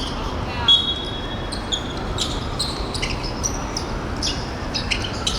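Korfball court noise in a sports hall: a steady high whistle tone lasting about a second, shortly after the start, with scattered short squeaks and knocks from the play.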